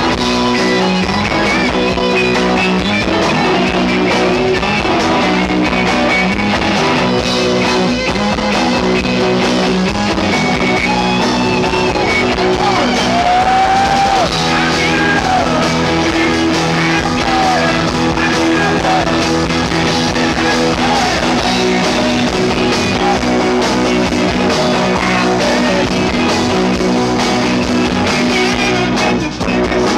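Live rock band playing loud, amplified: electric guitars, bass and drum kit together, with guitar notes that bend in pitch around the middle.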